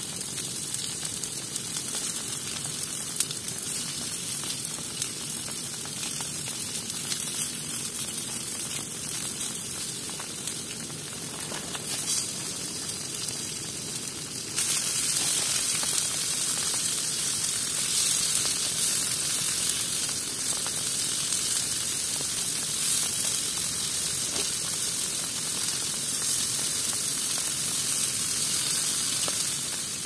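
Food sizzling on the fire: a steady hiss that steps up louder about halfway through.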